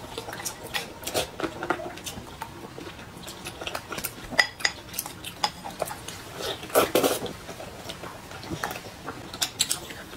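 Spoons clinking and tapping against a ceramic bowl during eating, in scattered small clicks with a busier flurry about seven seconds in.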